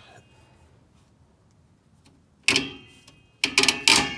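Sharp metallic clinks with a brief ringing tone, once about two and a half seconds in and then a quick cluster near the end: a steel drum-brake return spring and the brake-spring tool clinking as the spring is unhooked.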